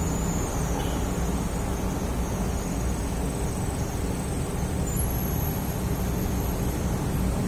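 A steady low hum and rumble of background noise, level throughout with no speech.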